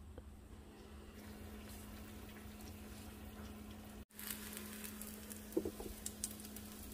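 Food sizzling as it deep-fries in oil in a pan on a gas stove, starting about four seconds in after a quiet hum, with a few light knocks of a utensil soon after.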